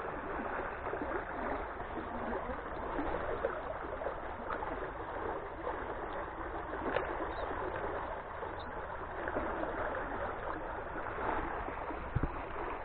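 Steady rush of flowing river water, with a few faint ticks and a short low knock near the end.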